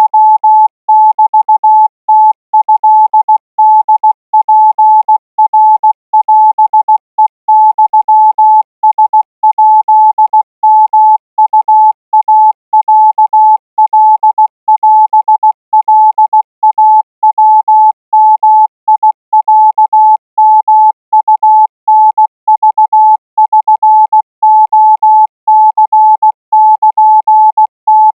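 Morse code practice signal: a single steady beep keyed on and off in short and long tones, sending Thai Morse code at 20 words per minute.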